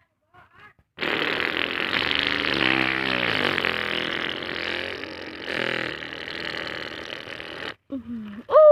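A radio-controlled truck's motor running hard and noisily for about seven seconds, with its pitch sliding down briefly around the middle, then cutting off suddenly.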